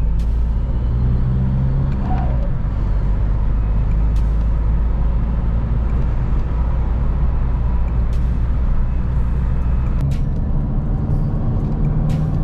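Škoda Octavia II with its 1.9 TDI diesel engine being driven, heard from inside the cabin: a steady low engine drone over tyre and road noise. The engine's tone changes about two seconds in and again near ten seconds.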